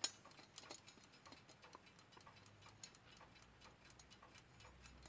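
Westclox Big Ben Style 1 alarm clock movement ticking faintly and evenly, about five ticks a second, its newly fitted balance wheel and escapement running. A single louder click comes right at the start.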